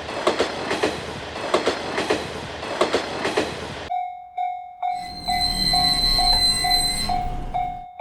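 Train wheels clacking over rail joints in pairs as a train passes. About four seconds in this cuts abruptly to a Japanese level-crossing warning bell ringing about twice a second. From about five seconds a second train runs through with a steady high whine, fading out shortly before the end.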